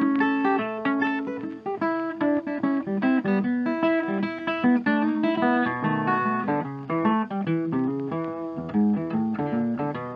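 Background music on guitar: a busy line of quick plucked notes over lower bass notes.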